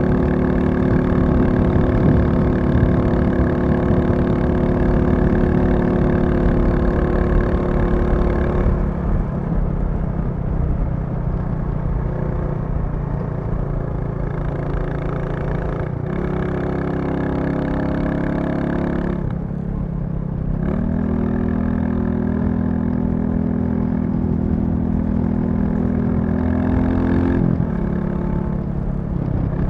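Royal Enfield Classic 350 single-cylinder motorcycle engine riding under way, running steadily at first. About nine seconds in it eases off, then pulls up in pitch, dips and settles again, with a further change in engine note near the end as the revs shift.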